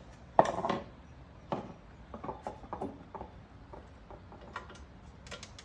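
Handling and clatter of parts on a lawnmower: one sharp knock about half a second in, then scattered light clicks and taps.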